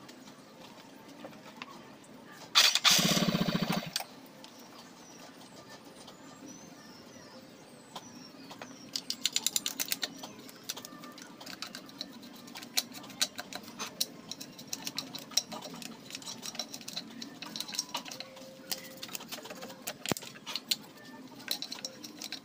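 Metal parts of a Yamaha Mio scooter's CVT being handled and fitted by hand: runs of small metallic clicks and rattles from about eight seconds in. A loud, brief buzzing sound about three seconds in.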